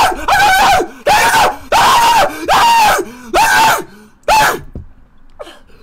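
A young man crying out in pain from the burn of an extremely hot chili chip: a run of about six loud wordless screams, each rising and falling in pitch, stopping near the end.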